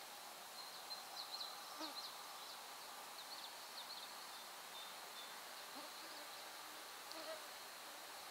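Faint outdoor ambience: a steady hiss with short, high-pitched chirps, bunched about one to four seconds in and again around seven seconds, and a few faint lower calls.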